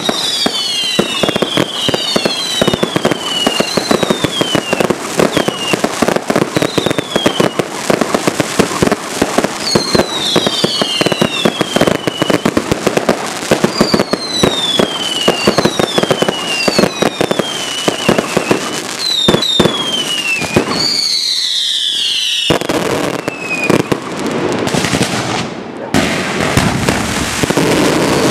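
Fireworks display: rapid bangs and crackling throughout, with a string of whistling fireworks whose whistles fall in pitch, one every second or two. A little past two-thirds of the way through, the cracks thin out briefly, then give way to a dense continuous crackle.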